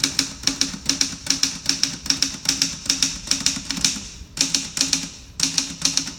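1957 Remington Travel-Riter manual portable typewriter being typed on: a quick, steady run of sharp key strikes, several a second, with brief pauses about four seconds in and again near five and a half seconds.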